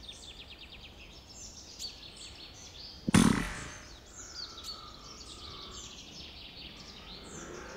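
A single sharp shot from a Brocock Bantam Sniper HR .177 PCP air rifle about three seconds in, with a short tail after it. Small birds chirp throughout.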